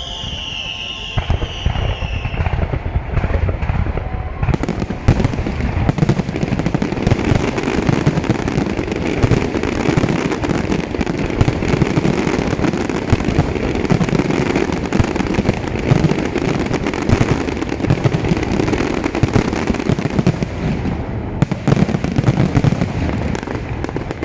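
Fireworks display. A descending whistle fades in the first couple of seconds, then a dense barrage of bangs and crackling runs for about twenty seconds, thinning briefly near the end before a few more bangs.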